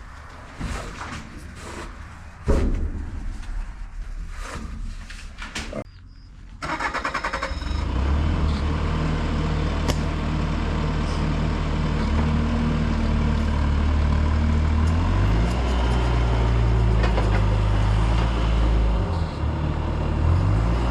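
A few clicks and a sharp knock. Then, about seven seconds in, an engine cranks and starts, and runs steadily, its pitch rising and falling as the machine is worked.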